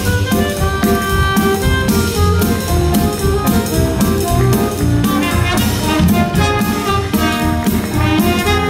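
Brassy big-band jazz show music from a Broadway musical score, with trumpets and saxophones over a steady drum beat.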